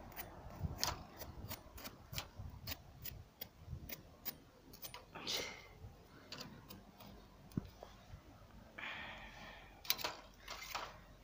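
Faint, irregular sharp pops and crackles from a charcoal brazier roasting a chicken on a wire grill over glowing coals.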